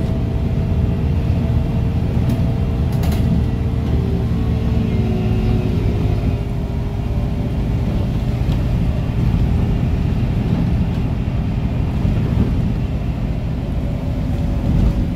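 Cabin sound of a MAN NL223 city bus under way: its 220 hp MAN D0826 LUH12 six-cylinder diesel and ZF 5HP-500 automatic drivetrain running, a steady low rumble with faint steady tones above it.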